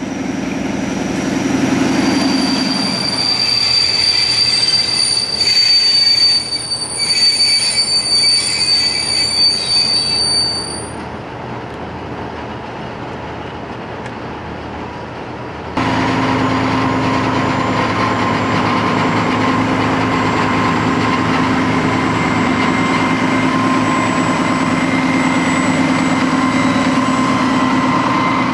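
Czech diesel express railcar passing under power: its engine note gives way to high, steady wheel squeal on the curve as the train goes by. After a cut, a slowly rolling train makes a steady, even running sound with a constant hum.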